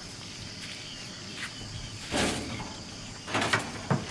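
Faint steady insect chirring, with a few short noisy rustles about halfway through and again near the end.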